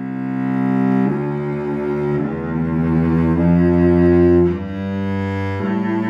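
Cello made by the Jérôme Thibouville-Lamy (JTL) factory of Mirecourt around 1910, played with the bow after a slight bridge adjustment and a week on a Tonerite vibration device: a slow line of sustained low notes, a new note about every second.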